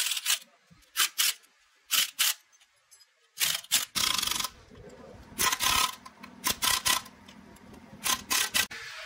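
Short bursts of scraping noise, about a dozen in quick irregular succession, from hand work on metal gearbox parts.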